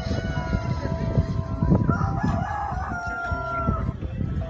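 A rooster crowing, over a dense low rumbling noise.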